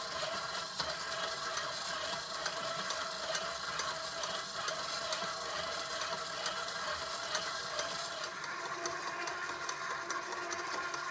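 KitchenAid tilt-head stand mixer running steadily on its dough hook, kneading stiff bread dough in a stainless steel bowl, with light clicking throughout. The dough is partway through a ten-minute knead.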